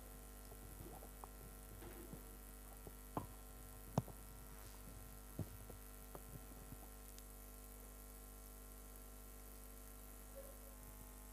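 Faint steady mains hum from the sound system, with a few soft clicks, the sharpest about four seconds in.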